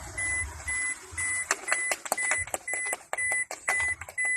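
An electronic vehicle beeper sounding over and over at an even pace, a short high beep repeating through the whole stretch. A run of sharp clicks and taps joins in from about a second and a half in.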